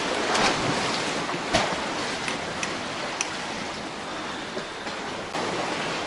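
Black Sea waves washing among the rocks and concrete blocks at the shore, a steady rush of water that swells about half a second in and again near the end, with a few faint clicks.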